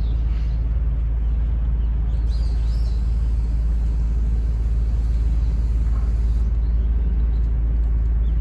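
A steady low rumble, with a few faint high chirps about two to three seconds in.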